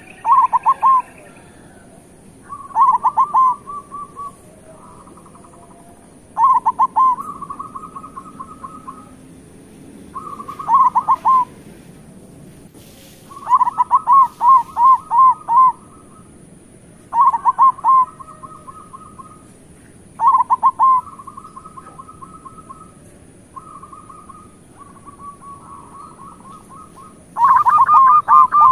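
Zebra dove (perkutut) singing its repeated cooing song: a phrase of quick, clipped notes followed by a rolling trill, about every three to four seconds, with fainter cooing between the loud phrases.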